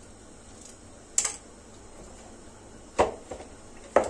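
Kitchen utensils handled on a counter: a light click about a second in, then two knocks about a second apart near the end, as a metal box grater is set down into a bowl.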